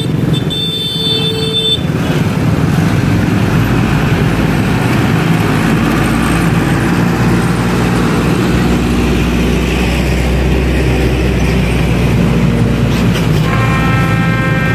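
Dense slow road traffic, mostly motorcycles and cars with their engines running, crawling over a railway level crossing. A vehicle horn sounds once for about a second and a half near the start, and a heavier engine rumbles low through the middle. Near the end a sequence of steady tones stepping between pitches begins.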